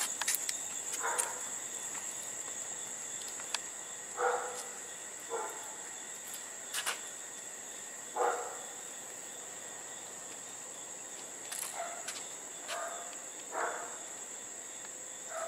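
Crickets chirping steadily in a high, even trill at night, with a handful of short, soft rustles scattered through.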